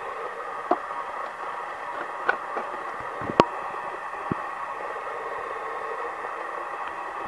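Steady electrical hiss with a faint whine, broken by a few light clicks and knocks as the plastic case of a Casio MT-68 keyboard is handled.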